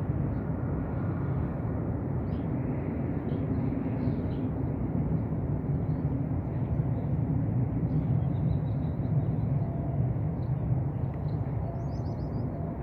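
Distant steady low rumble of an Airbus A321 airliner's jet engines as it comes in to land, with faint bird chirps here and there.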